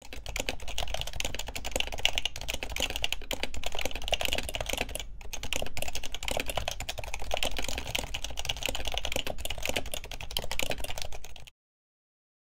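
Rapid clicking of computer keyboard keys being typed, with a brief pause about five seconds in, stopping abruptly near the end.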